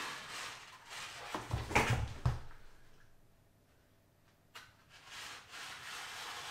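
A plastic windscreen sun-strip sheet being handled and cut on a worktop: rustling, then a few dull knocks just under two seconds in. After a pause comes a single sharp click.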